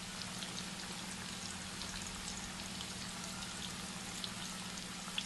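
Batter-coated cauliflower pieces deep-frying in hot oil: a steady sizzle with scattered small pops and crackles.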